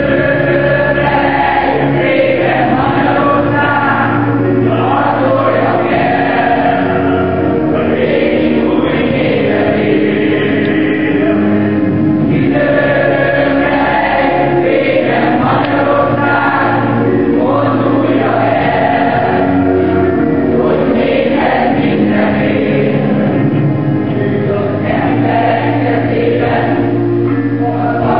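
Mixed youth choir of boys and girls singing together from sheet music, over held organ chords.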